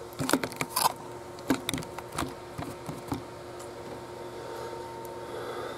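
Clicks and light knocks of plastic LEGO pieces as the robot model is handled and posed, a quick run of them over the first three seconds, then only a steady faint hum.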